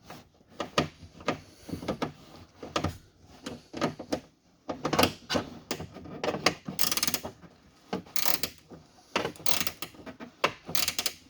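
10mm ratchet wrench clicking in short runs of quick strokes as it tightens a nut.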